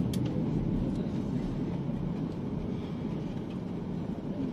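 Airbus A330 cabin noise during the ground roll after landing: a steady low rumble of engines and wheels that slowly eases as the airliner slows, with a faint click near the start.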